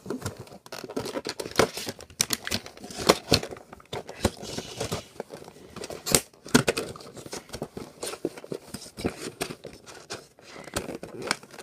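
Plastic blister packaging crinkling, crackling and clicking as it is handled and forced back into a cardboard box, in a run of irregular sharp crackles and snaps.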